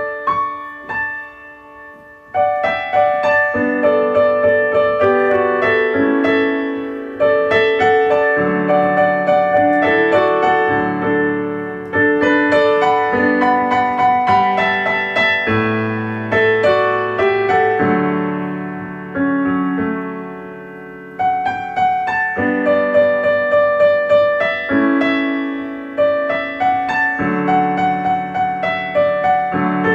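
Solo piano music: a gentle, slow piece of struck chords and melody notes that ring and fade, in phrases that start again every few seconds, opening with a quiet couple of notes before the full playing comes in.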